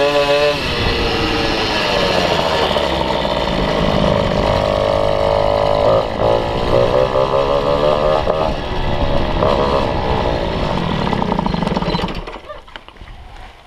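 MBK 51 moped's 50 cc two-stroke engine running under load, its pitch climbing and falling several times with the throttle. About twelve seconds in it drops away sharply as the throttle closes.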